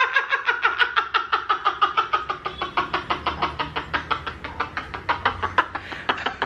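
Two people laughing hard together: a long, unbroken run of rapid ha-ha pulses, several a second, that slowly grows quieter.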